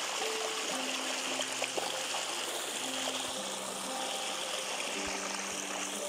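Shallow stream rushing and splashing over rounded river stones in a small cascade, a steady wash of water. Soft background music of slow, held low notes plays under it.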